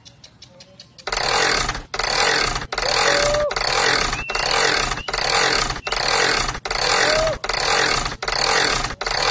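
Rhythmic scraping, about three strokes every two seconds, starting about a second in and keeping an even beat.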